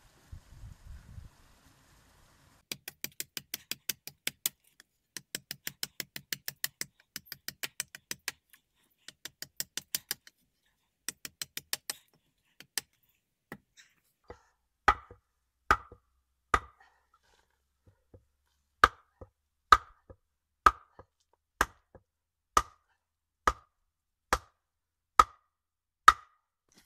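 Wood striking wood, in bushcraft work. First come quick runs of light taps, several a second. From about halfway there are single heavier knocks about a second apart: a wooden baton beating a knife through a log, then striking a stick into a bed frame.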